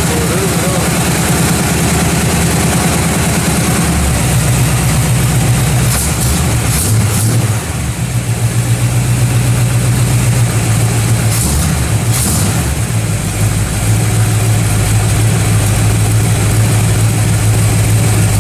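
Freshly installed four-barrel-carbureted V8 running in its first start-up after the swap, mostly at a steady idle. Its note shifts a few times, with a brief dip near eight seconds in.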